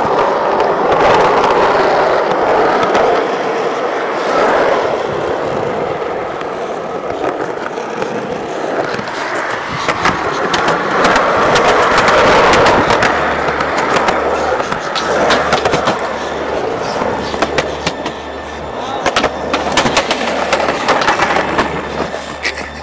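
Skateboard wheels rolling over concrete, with sharp clacks of the board's tail and trucks hitting the ground as tricks are popped and landed, more of them in the second half.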